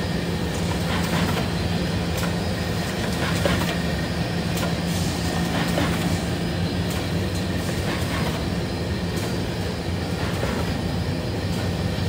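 Semi-automatic two-piece carton folder gluer running: a steady low hum under a continuous rattling clatter, with irregular clicks as corrugated cardboard pieces are fed through and carried along the machine.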